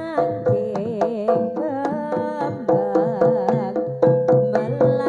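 Live jaranan ensemble music: a wavering melody with vibrato over a steadily held tone and frequent drum strokes.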